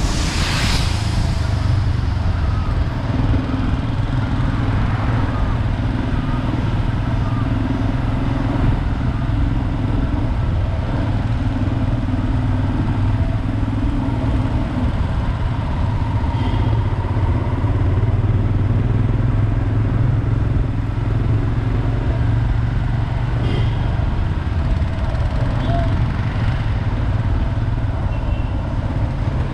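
Royal Enfield Himalayan's 411cc single-cylinder engine running steadily under way, with wind and road noise. A brief rush of noise comes just after the start.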